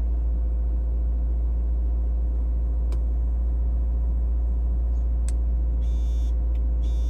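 Subaru Outback engine idling, a steady low rumble. A few faint clicks and two short buzzy bursts come near the end.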